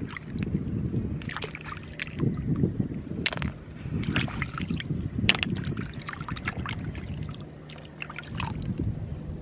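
Hands splashing and sloshing in shallow water while groping for snails, with short splashes and drips. A low rumble of wind on the microphone rises and falls underneath.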